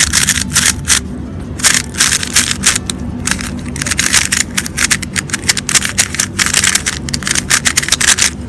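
MoYu Weilong GTS3 M magnetic speedcube being turned quickly by hand, a rapid, irregular run of plastic clacks and scrapes as the layers snap into place. The new cube is unlubricated and really dry.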